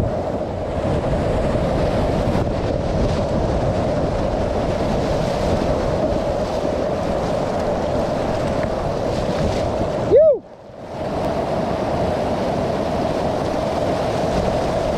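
Whitewater rapids rushing steadily around a slalom kayak. About ten seconds in there is a short rising-and-falling tone, then the sound goes briefly muffled and quiet before the rush returns.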